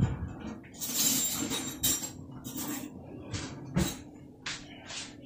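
Handling noises at a kitchen counter: a run of rustles, clicks and knocks, with a sharper knock about four seconds in, over a faint steady hum.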